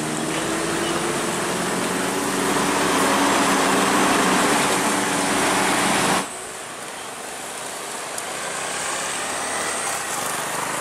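Mercedes-Benz coach's diesel engine labouring under load on a steep, rough grade, with a steady engine hum over loud mechanical noise. About six seconds in it cuts off suddenly to quieter, more distant truck traffic.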